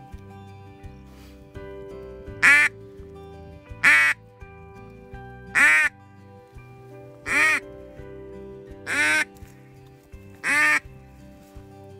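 A hunter's mouth-blown duck call giving single loud quacks, six in all, about one every one and a half seconds, over steady background music.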